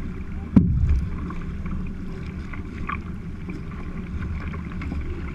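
Kayak out on the water, with a steady low rumble of wind on the microphone and one sharp knock about half a second in.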